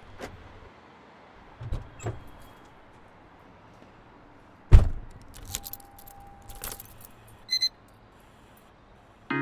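Car keys jangling and light handling clicks, then a car door shutting with a heavy thump about five seconds in, followed by more small clicks and a short electronic double beep.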